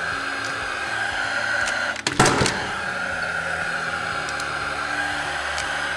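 A single sharp shot about two seconds in from a Rawlplug R-SC40II gas-actuated nailer, driving a nail through a metal clip into concrete. A steady hum runs underneath.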